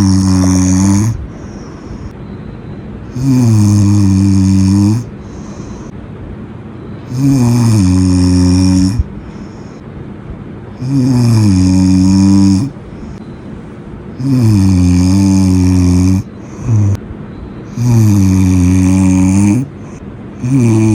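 A person snoring loudly, each snore a low, buzzing, pitched drone of about one and a half to two seconds. The snores repeat about every four seconds, six times, with quieter stretches between.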